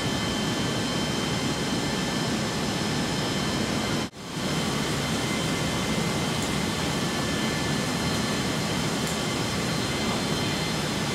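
Steady drone of a C-17 transport's four turbofan engines and airflow, heard from inside the cargo hold, with a faint high whine over it. It cuts out for a moment about four seconds in, then carries on unchanged.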